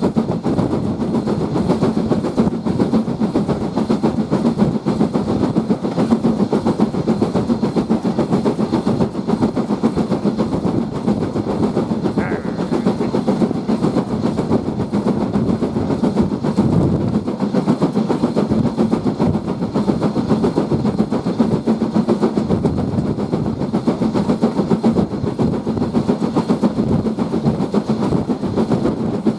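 BR Standard Class 4 2-6-4T steam tank locomotive working hard with its train: a steady rapid beat of exhaust and running gear mixed with wheel-on-rail noise, heard close up from the carriage behind it.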